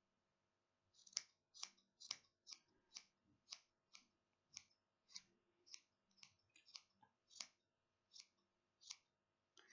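Small scissors snipping through the yarn of a pom-pom as it is trimmed to shape. The sharp snips come in a steady run of about two a second, starting about a second in.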